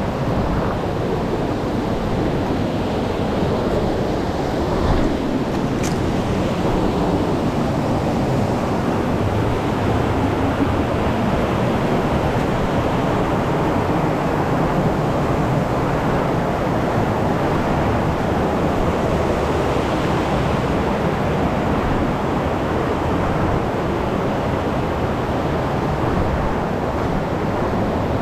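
Fast river water rushing over rocks in white-water rapids, a steady, loud wash of noise.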